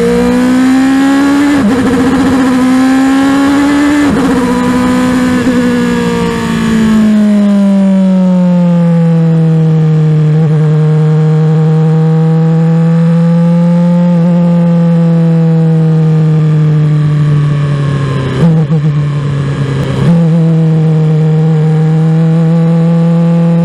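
Formula One car's engine heard from the cockpit, climbing in pitch twice with a sudden drop after each climb, like upshifts. It then falls back and runs at a steady part-throttle note of about 4,700 rpm, with two brief breaks in the note near the end.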